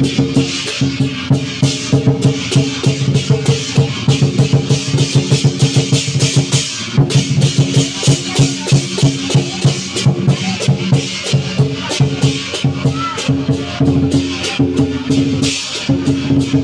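Chinese dragon dance percussion: a drum beaten in a fast, steady rhythm together with clashing cymbals, playing without a break.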